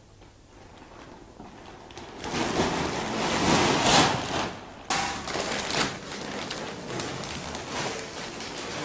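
Large clear plastic bag crinkling and rustling as a person rolls and crawls inside it. The rustling swells about two seconds in, is loudest around four seconds, then goes on more quietly.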